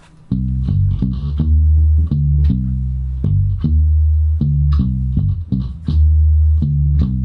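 Live band rehearsal in a small room: a Music Man electric bass plays a low, rhythmic line with a drum kit and guitar, starting about a quarter second in.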